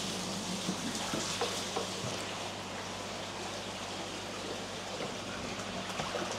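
Steady running, splashing water in koi ponds or holding tanks over a low, steady electrical hum, with a few small splashes in the first couple of seconds.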